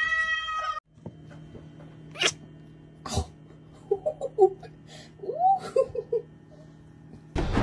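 A cat's drawn-out yowl, cut off under a second in. Then a small kitten spitting twice in sharp bursts about a second apart, followed by several short squeaks, over a steady low hum.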